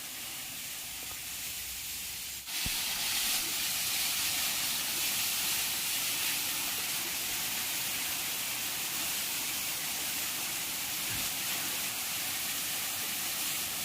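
Waterfall rushing: a steady hiss of falling water, which gets louder about two and a half seconds in and then holds steady.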